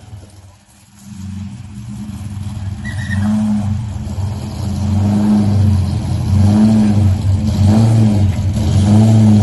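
Car V8 engine revved in repeated short throttle blips, each rising and falling in pitch about once a second, growing louder after a quiet first second.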